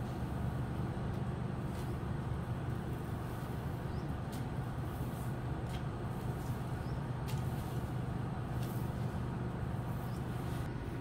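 A steady low mechanical hum, like a motor running, under faint scratchy strokes of a grass broom sweeping a concrete floor, about one every second and a half.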